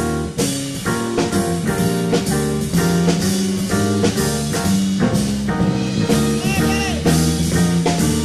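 Big band playing a jazz number live: horns over bass and a steady drum beat, with one held note wavering in pitch about six and a half seconds in.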